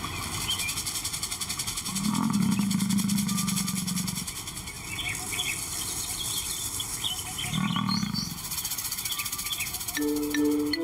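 Male lion giving two low, pulsing roars: a long one of about two seconds, and a shorter one a few seconds later. Faint bird chirps sound in the background.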